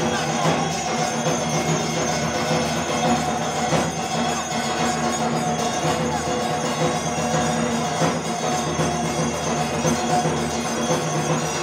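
Temple arti music: bells jingling and brass percussion and drums playing continuously over a steady held tone, with no pause.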